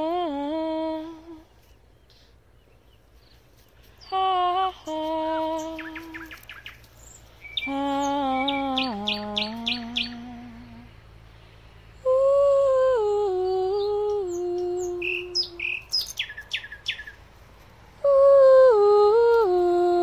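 A woman sings wordless, improvised phrases that step down in pitch, answered by a common nightingale. The bird sings rapid runs of repeated high whistled notes and sharp chirps in the gaps between her phrases.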